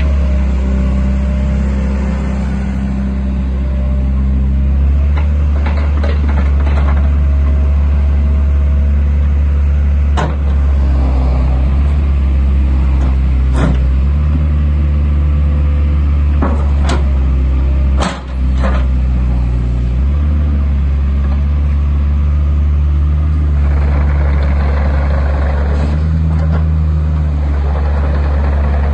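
JCB 8080 midi excavator's diesel engine running with its note stepping up and down as the hydraulics take load while the machine slews and works its boom, with several sharp knocks and clunks along the way.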